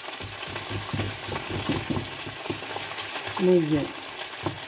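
Sea bream and asparagus frying together in a pan: a steady sizzle with scattered small clicks and scrapes. A short voice sound comes about three and a half seconds in.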